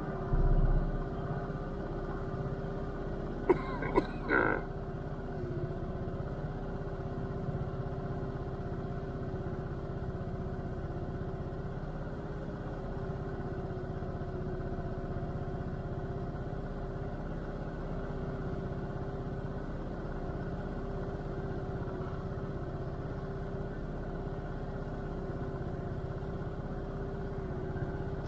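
Small motor scooter engine idling steadily while stopped. A brief low thump near the start and a few short sharp clicks about four seconds in.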